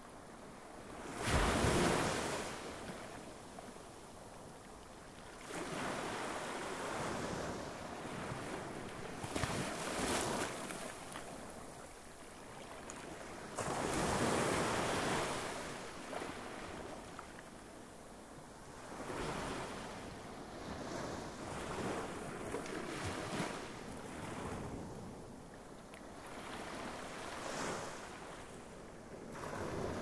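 Sea waves breaking on the beach and washing back, swelling and falling in a surge every few seconds; the surge about a second in is the loudest.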